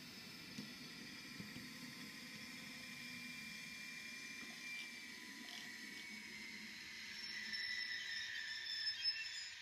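Small electric motor and gearing of a model railway shunting tractor whirring as it runs slowly along the track, growing louder near the end, with a couple of sharp clicks about nine seconds in.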